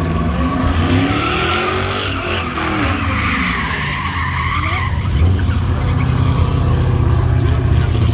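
A car's engine revving hard, its pitch rising and falling, while its tires squeal and skid as it spins donuts on pavement; from about five seconds in the engine settles into a steadier, deeper note.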